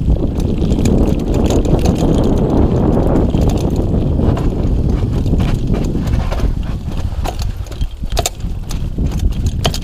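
Mountain bike descending a rough dirt trail at speed: the tyres rumble over the dirt while the bike rattles and clatters over bumps, with a few sharper knocks near the end.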